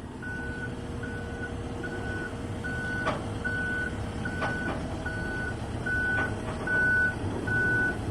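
Excavator travel alarm beeping steadily, one high beep about every 0.8 seconds, getting louder partway through, over the low rumble of the diesel engine as the machine tracks. A few sharp knocks come in between the beeps.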